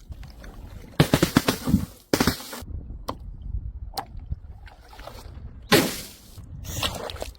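A run of crashes from glass bottles smashing: a burst of breaking glass with scattering shards about a second in, another crash shortly after, two single clinks, then two more hard smashes near the end.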